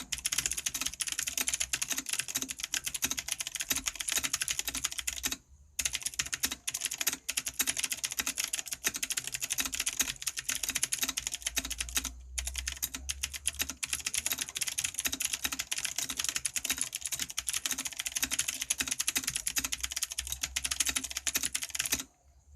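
Fast, continuous typing on an IKBC F87 mechanical keyboard with clicky blue switches: a dense stream of sharp key clicks, broken by two short pauses and stopping just before the end.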